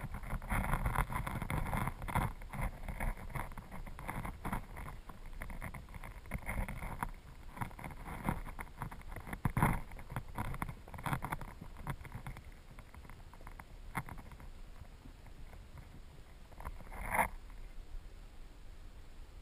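Muffled underwater sound picked up by a camera on a riverbed: uneven rushing of the current with many soft knocks, swelling louder about ten seconds in and again near seventeen seconds.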